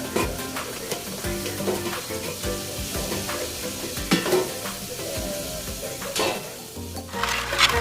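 Background Latin-style music with hissing, scraping percussion over changing melodic notes.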